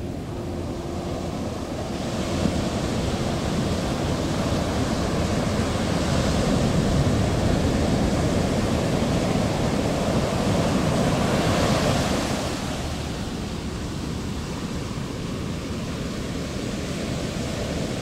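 Sea surf washing over rocks: a steady rush of water that swells louder about two seconds in and eases off after about twelve seconds.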